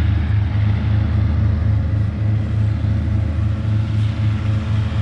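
Mechanical grape harvester running: a steady engine rumble with a regular low throb.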